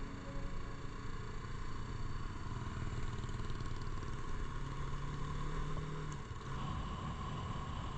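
Motorcycle engine running steadily while riding, over a constant rush of road noise. About six seconds in, the engine note changes: a low hum drops out and a higher tone comes in.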